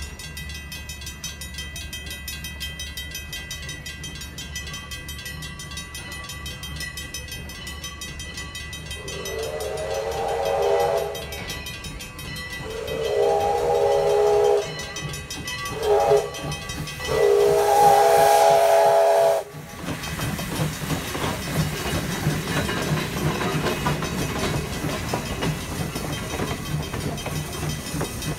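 Grade-crossing signal bell ringing steadily, then a steam locomotive's chime whistle blows the crossing signal: long, long, short, long. The train then rolls over the crossing, wheels clicking over the rail joints in a steady rhythm.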